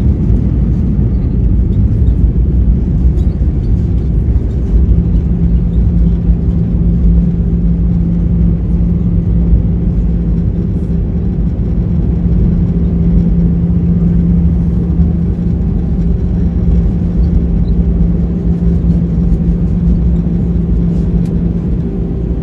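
Cabin noise inside an Airbus A319 rolling on the ground after landing: a loud, steady low rumble of engines and wheels, with a steady hum coming in about five seconds in.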